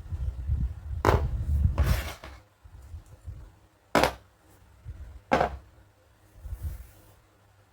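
Plastic toy dentist-kit pieces handled and set down: several sharp clicks and knocks, about one, two, four and five and a half seconds in, with low rubbing and handling noise between them.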